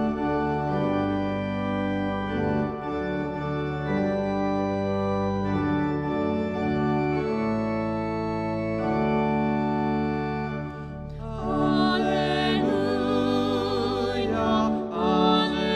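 Organ playing slow, sustained chords. About eleven seconds in, a higher melody line with strong vibrato joins over the chords.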